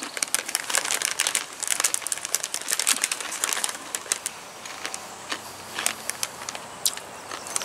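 Bag of Takis rolled tortilla chips crinkling as a hand rummages inside it: a dense run of crackles for about the first four seconds, then sparser, scattered crackles.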